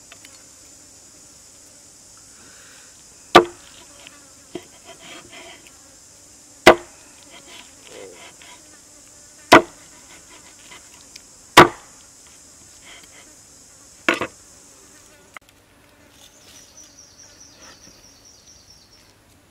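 A heavy cleaver chopping down onto a wooden chopping block five times, a few seconds apart, the last a quick double strike, with faint clicks and scrapes between the chops. A steady high insect drone runs underneath and stops about three-quarters through, after which a faint pulsing insect trill is heard.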